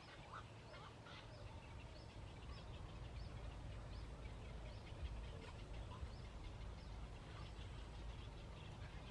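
Birds calling: short high calls repeated about twice a second, over a steady low rumble.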